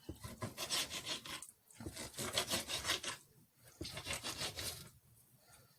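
Knife sawing back and forth through raw chicken on a cutting board, in three bouts of quick strokes separated by short pauses.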